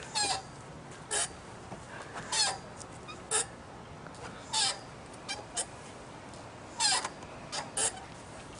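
A baby bucket swing on a metal swing set squeaking as it goes back and forth: a short squeak about every second, some of them doubled.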